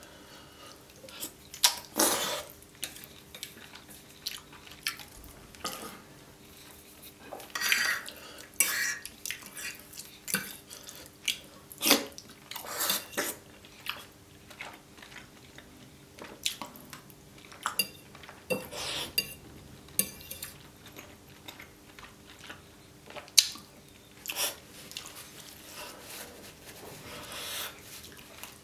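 Metal fork and chopsticks clinking and scraping on a ceramic plate as creamy carbonara fettuccine is twirled up, in scattered sharp clicks, with wet slurping and chewing of the sauce-coated noodles between them.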